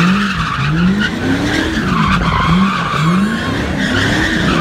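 Car spinning donuts: its tyres squeal without a break, and the engine's pitch rises and falls about twice a second as the throttle works the spin.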